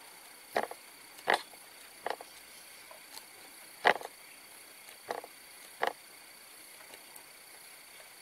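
Thick paper pages of a paperback colouring book being turned by hand: about six short, sharp flaps of paper at irregular intervals that stop about six seconds in.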